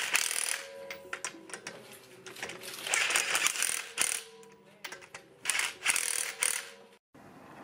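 Cordless impact wrench hammering lug bolts onto a car wheel in three short rattling bursts, tightening the wheel back on.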